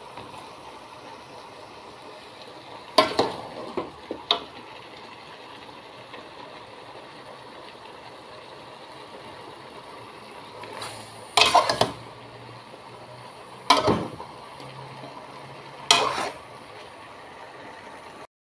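Metal spatula stirring chicken, onion and tomato in an aluminium pot, clanking and scraping against the pot in short bursts: a cluster about three seconds in, then several more in the second half. A steady hiss runs underneath.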